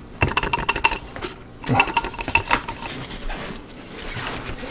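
Popped popcorn rattling and tumbling out of a glass microwave popcorn popper onto a paper plate, in two main bursts of rustling with light clinks of the glass bowl.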